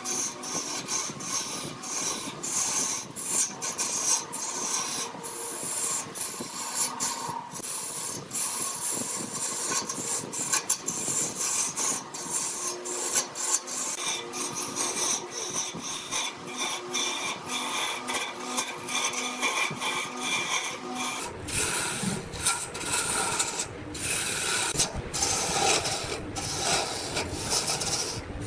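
Wood being worked on a spinning lathe: a continuous rasping, scraping hiss that keeps breaking off briefly. About three-quarters of the way through, a lower rumble joins in.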